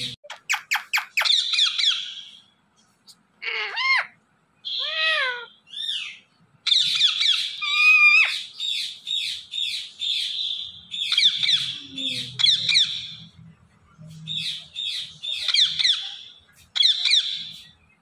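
Rose-ringed parakeet calling: runs of quick, high, shrill calls, a few of them swooping down and up in pitch, with short pauses between the runs.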